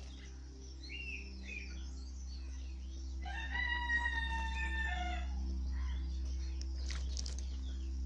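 Rooster crowing once: a single call of about two seconds that swings up at the start and drops at the end, with a few short bird chirps before it.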